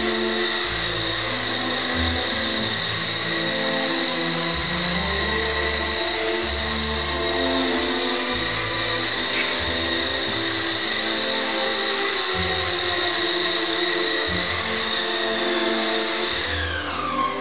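E-flite Blade CX2 coaxial micro RC helicopter's electric motors and rotors running with a steady high whine in flight. Near the end the whine falls in pitch as the motors spool down for landing.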